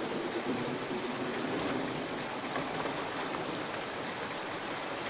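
Steady rain falling, an even hiss with scattered drops ticking through it.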